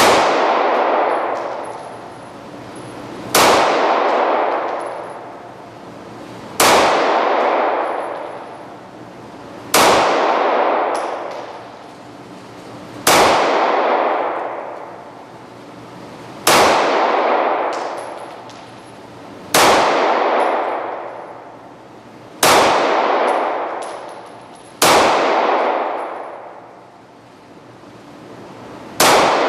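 Ruger SR9 9mm pistol fired slowly, one shot about every three seconds, about ten shots in all, each sharp crack followed by a long ringing decay.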